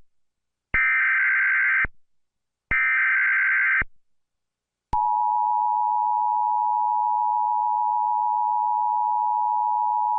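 Emergency Alert System SAME header: two raspy digital data bursts, each about a second long with a short gap between. About five seconds in, the steady two-tone EAS attention signal starts and holds.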